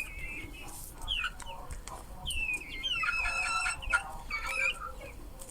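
A small bird chirping repeatedly with short high calls, denser about three seconds in, among sharp light clicks as it pecks at corn kernels from a hand.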